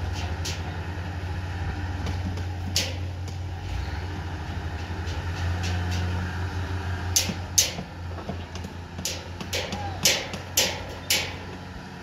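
Wheel loader's diesel engine running with a steady low drone that eases off after about eight seconds. Sharp knocks ring out once about three seconds in and then about seven times in quick succession near the end.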